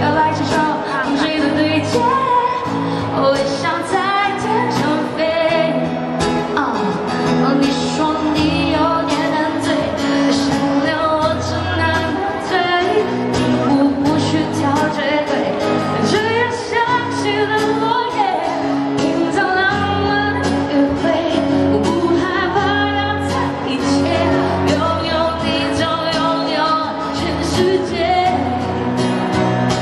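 A woman singing a pop song live into a microphone, accompanied by strummed acoustic guitar.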